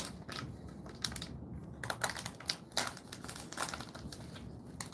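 Crinkling of a plastic snack-treat wrapper being handled, heard as a run of small irregular crackles and clicks.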